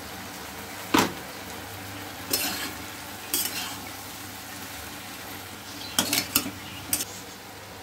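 Chopped vegetables and spices frying in a wok with a steady sizzle, while a metal spatula stirs them. The spatula knocks and scrapes against the pan several times, with a quick cluster of knocks near the end.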